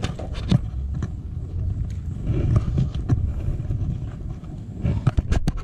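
Wind rumbling on the microphone, with a few sharp clicks and knocks: two early on and a quick cluster near the end.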